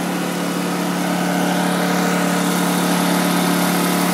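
Honda EU2000i inverter generator's small single-cylinder four-stroke engine running steadily under load, getting a little louder about a second in. It is burning the last of the gasoline in its carburetor bowl with the fuel valve shut, shortly before it starves and stops.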